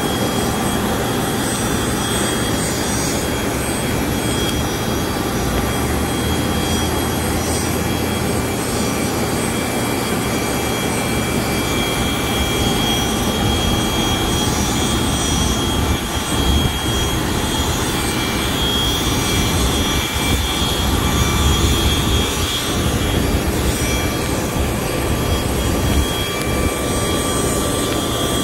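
Business-jet turbine engines running on the ramp with the aircraft standing still: a steady high whine over an even rush of jet noise.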